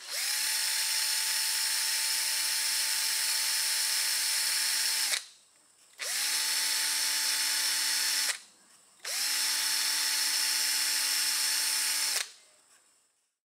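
Electric drill boring a small hole in a plastic car air-vent slat, run in three bursts: about five seconds, then two, then three, each spinning up quickly, running at a steady speed and stopping, with short pauses between.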